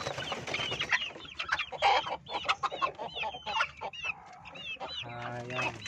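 A flock of young chickens peeping and clucking, many short high falling calls overlapping one another, thinning out toward the end.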